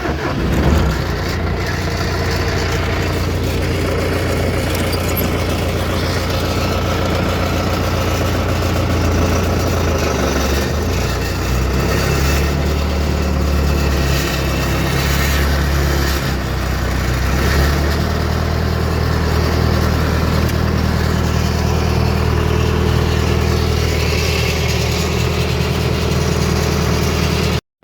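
Farm tractor engine running steadily and loudly while the tractor is driven, its engine note shifting in pitch several times in the middle. The sound breaks off abruptly just before the end.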